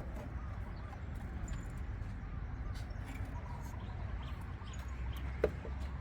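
Light clicks and taps of work at the battery terminals over a low steady rumble, with one sharper click about five and a half seconds in.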